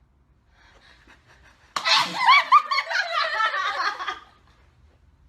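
Several people laughing together, starting suddenly about two seconds in and lasting about two and a half seconds.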